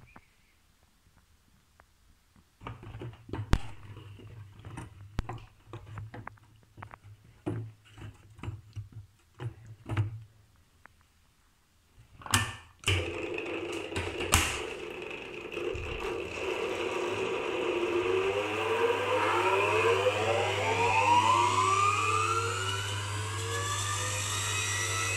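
Electric honey extractor with a top-mounted motor. First, scattered clicks and knocks, and a few sharp clacks about twelve seconds in. Then the machine runs steadily, and from about eighteen seconds its whine climbs in pitch as the cage of honeycomb frames spins up.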